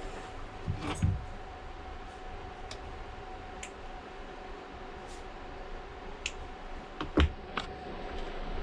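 Scattered light clicks and taps of small hand tools and parts being handled on a work surface, about eight in all, over a faint steady hum.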